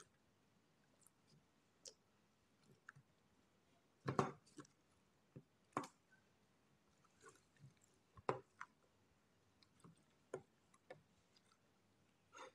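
Clear jiggle water slime squeezed by latex-gloved fingers in a thin plastic tub: sparse soft squelches and clicks, the loudest about four, six and eight seconds in.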